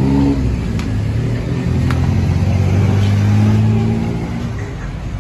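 Engine of a road vehicle running close by, a low steady drone that is loudest about three seconds in and then fades. Two faint clicks sound in the first two seconds.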